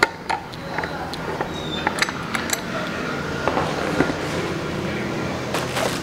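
Metal tool clinking and scraping against the steel heating-element flange of an electric water heater while it is pried loose: a few sharp metallic clicks, with a cluster near the end. A low steady hum runs underneath.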